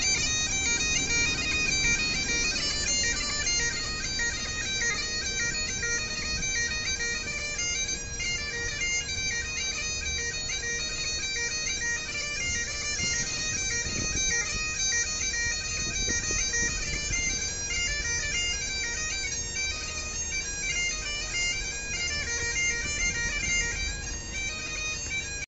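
Highland bagpipes playing a tune: the chanter's melody steps from note to note over the pipes' steady drone.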